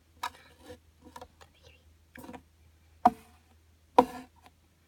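Plastic Littlest Pet Shop toy figure tapped and set down on dollhouse furniture: about five short sharp taps, roughly one a second, the two loudest about three and four seconds in.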